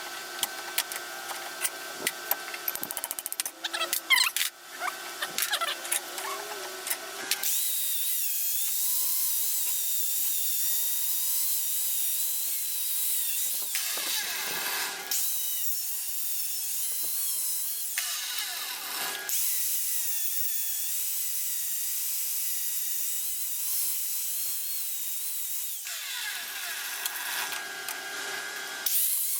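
Power grinding tool working a rusty cross peen hammer head, cleaning off the rust and dressing the faces. First come about seven seconds of clicking over a lower steady hum, then a steady high whine whose pitch wavers, with brief changes twice in the middle and again near the end.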